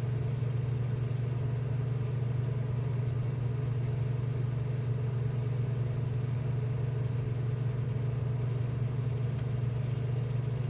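Steady low machine hum, unchanging in pitch and level, with a strong low drone and a fainter higher tone above it.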